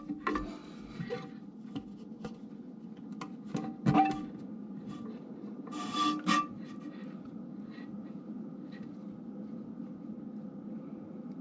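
Background music with a few plucked guitar notes in the first half, over a steady low hum.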